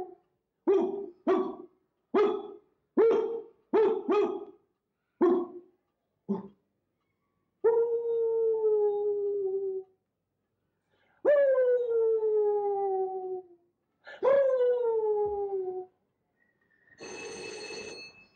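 A man imitating a dog: a run of about eight short yelps, then three long howls, each starting high and sliding down in pitch. A shorter, fainter noisy sound with a ringing tone comes near the end.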